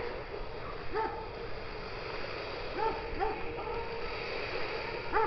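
A dog barking about four times, a second or two apart, with the last bark the loudest, over a steady hiss.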